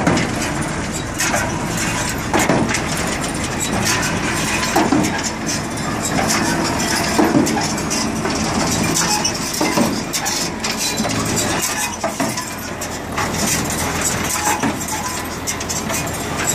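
John Deere small square baler running: a steady mechanical noise with repeated sharp knocks coming every second or two.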